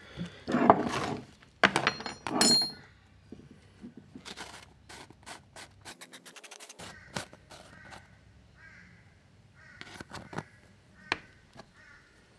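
Workshop handling sounds: a steady hum stops, then two loud scrapes in the first three seconds, the second with a brief high metallic ring, followed by a string of light clicks, knocks and scratches.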